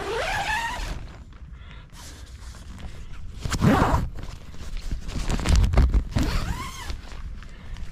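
Nylon tent fabric rustling and being handled as a truck-bed tent's privacy curtain is untied and let down, with a few short sweeping sounds and heavy low bumps in the middle from handling.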